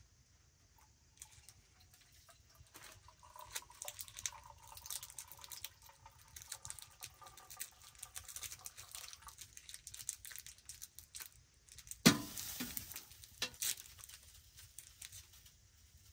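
Liquid poured from an aluminium teapot into a metal cup, a thin trickle that stops about nine seconds in. About twelve seconds in comes one loud knock, and a smaller one shortly after.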